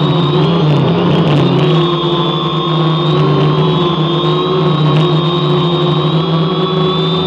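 Electric motors and propellers of a radio-controlled drone, heard from its onboard camera: a steady buzzing hum with several whining tones that wobble slightly in pitch as it descends toward the ground.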